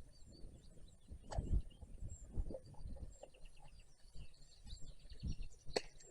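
Faint bird calls, a few short chirps and one quick trill, over low outdoor rumble. A few sharp knocks and thuds come through, the sharpest near the end.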